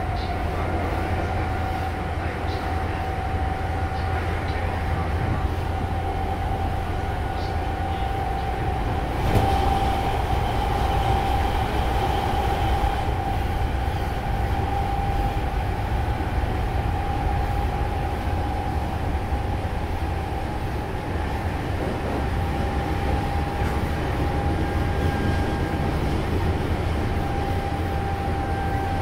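Semboku Rapid Railway 3000 series electric train running, heard from inside the passenger car: a steady whine from the drive holding almost level and creeping slightly higher, over a low rumble of wheels on the rails. There is a brief knock about nine seconds in.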